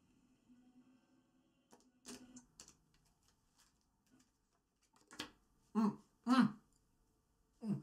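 Faint clicks of playing cards being handled, then a man making four short throat noises in the second half, the loudest sounds here.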